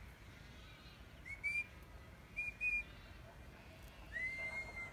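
Shepherd's whistle commands to working border collies: a short rising whistle about a second in, two short whistles about halfway, and a longer whistle that rises and then holds near the end.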